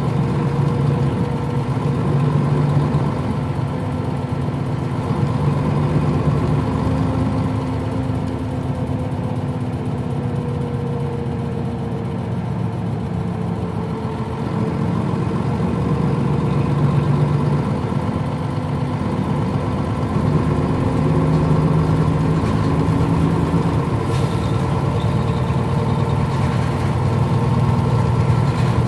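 Diesel engine of a Nissan Diesel KL-UA452MAN city bus running steadily, its note drifting gently up and down in pitch.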